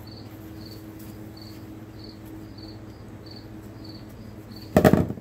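A cricket chirping steadily about twice a second over a low steady hum, with a brief loud noise near the end.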